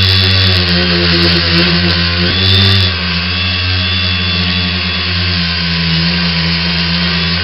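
X900 tricopter's three brushless motors and propellers running in flight, a steady hum with a high whine over it. About two and a half seconds in the motors speed up briefly, rising in pitch and loudness, then settle back.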